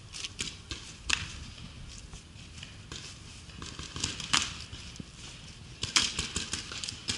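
Paintball markers firing: scattered sharp pops, with a rapid string of shots near the end.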